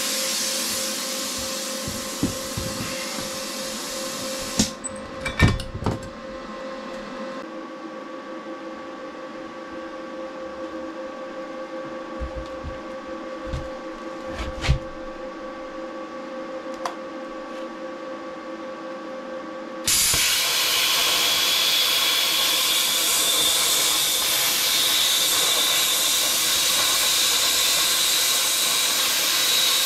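Plasma cutter hissing as it cuts steel plate, stopping about five seconds in. A steady hum and a few knocks follow, and then the plasma hiss starts again suddenly and loudly about two-thirds of the way through, with a high whine in it.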